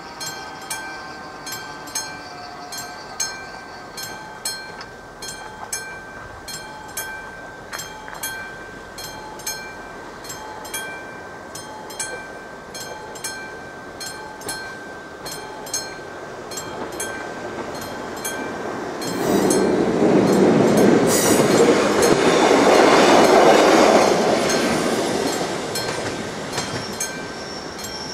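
AŽD 71 level-crossing warning bell striking steadily, about three strikes every two seconds. Partway through, a passing train's rumble builds, is loudest for several seconds and then fades as the train crosses.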